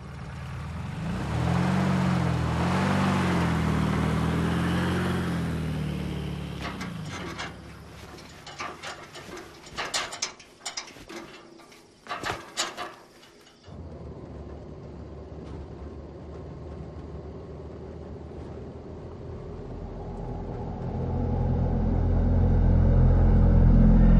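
Car engine accelerating away, its pitch rising and falling over several seconds before fading. Then a scatter of sharp metal clanks and knocks from a metal gate being climbed, and after a sudden cut a low rumbling drone that swells near the end.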